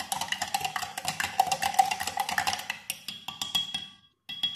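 Metal spoon stirring a drink in a glass jug, clinking rapidly against the sides; it stops near the end, with a brief last clink.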